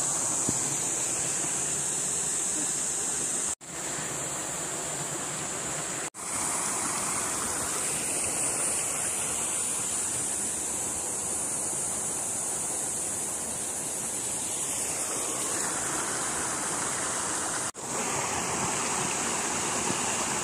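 Small waterfall splashing steadily into a rock pool, with a steady high hiss above the rush of water. It drops out for an instant three times.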